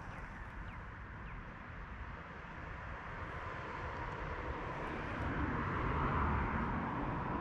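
A distant engine growing gradually louder, peaking about six seconds in, with a faint steady hum.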